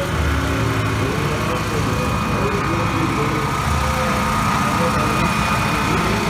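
Parade vehicles' engines running at a slow crawl, a steady low rumble, with crowd voices mixed in.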